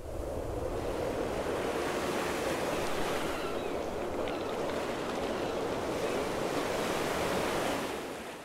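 Steady wash of sea water with wind rumble under it. It fades in at the start and fades out near the end.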